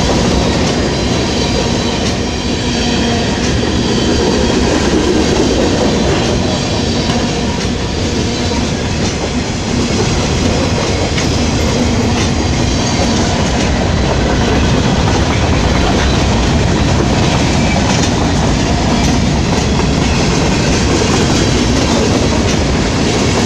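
Norfolk Southern freight train 15T rolling past, a steady, loud run of wheel-on-rail noise from the passing cars.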